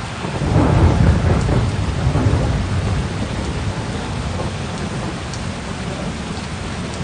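Steady heavy rain with a low rumble of thunder that swells about a second in, then rolls on under the rain.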